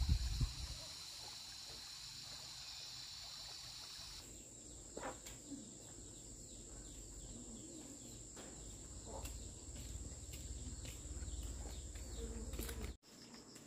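Insects chirring with a fast pulsing trill, opening with a dull thump. After about four seconds the chirring gives way to a steady high whine over a low rumble that grows louder, with a few light knocks.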